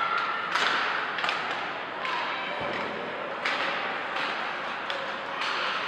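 Basketball game in a gym: a ball bouncing on the court in several separate thuds, with voices in the background.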